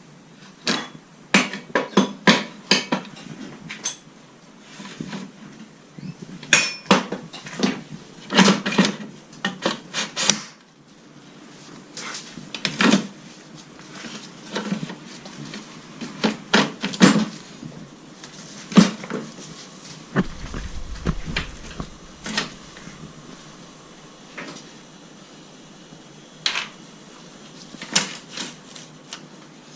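Metal hand tools and parts clinking and clanking in irregular sharp knocks during motorcycle chain and sprocket work, with a brief low rumble about twenty seconds in.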